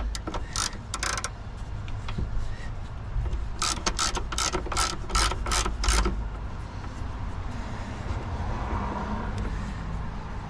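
Socket ratchet clicking as the 13 mm nut on the battery hold-down bracket is run down: a few scattered clicks at the start, then a run of about seven even clicks, roughly three a second, around the middle.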